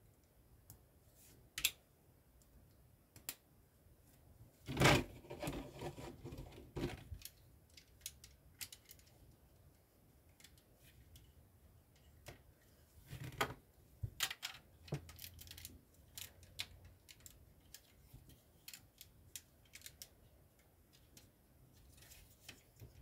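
Plastic LEGO bricks being handled and pressed together: scattered sharp clicks, with a louder clatter of bricks about five seconds in and another burst of clicks around thirteen seconds.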